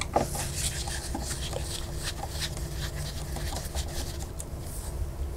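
Phillips screwdriver backing small screws out of a server chassis: a run of small, irregular metal clicks and scrapes over a low steady hum.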